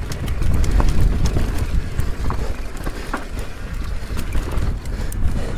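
Mountain bike riding fast down a rough trail: a steady low rumble of tyres and wind, with irregular clicks and knocks from the bike rattling over rocks and roots.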